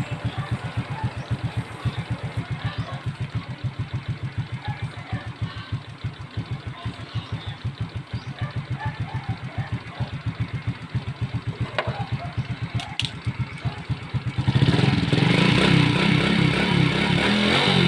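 Suzuki Raider Fi motorcycle engine idling with an even put-put, holding idle without stalling now that the idle screw on the throttle body has been adjusted. About fourteen seconds in, the engine speeds up and gets louder.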